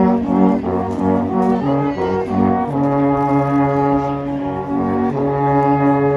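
A group of wooden alphorns playing together in harmony: a run of short notes for the first two or three seconds, then long held chords.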